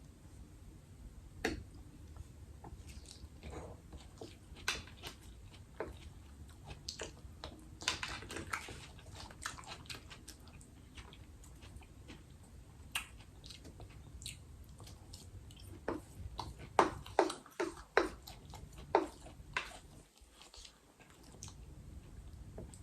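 Close-miked mouth sounds of a person biting and chewing food: scattered wet clicks and smacks, with a run of louder smacks about three quarters of the way through.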